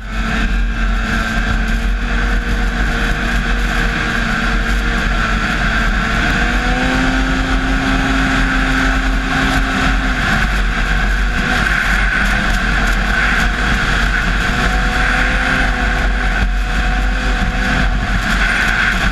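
Arctic Cat XF 800 snowmobile's two-stroke twin engine running at a steady cruising speed, heard from the rider's seat, with a loud hiss over it. The pitch rises slightly about six seconds in and drops back about ten seconds in.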